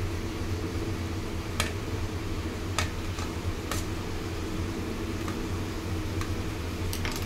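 Knife cutting paneer into cubes on a steel plate, its blade ticking sharply against the metal every second or so, about eight times. A steady low hum runs underneath.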